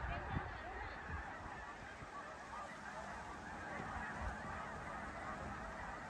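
A large flock of snow geese calling in flight: a dense, continuous chorus of many overlapping honks.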